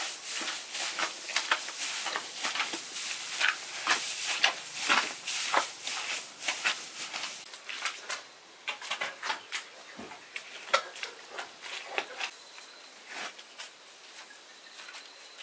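Dense rustling and crackling of material being handled by hand, with scattered sharper clicks; it thins out to sparser rustles about halfway through.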